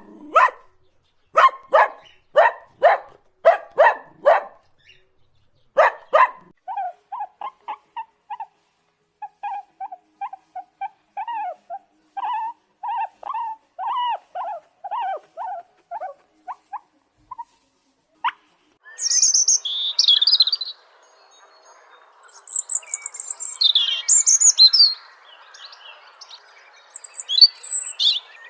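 A dog barking in a run of sharp barks, then a long series of short pitched calls, then, after a single click, birds chirping high over a steady hiss.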